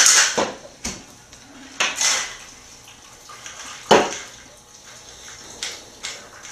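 Ice rattling in a stainless steel cocktail shaker stops just after the start, then sharp metallic clinks and knocks of the shaker and ice as it is opened and tipped to pour the drink over ice into a glass; the loudest clank comes about four seconds in.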